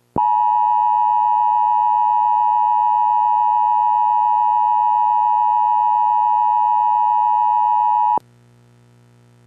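Emergency Alert System two-tone attention signal: one steady, loud electronic tone lasting about eight seconds that cuts off abruptly, leaving a faint low hum.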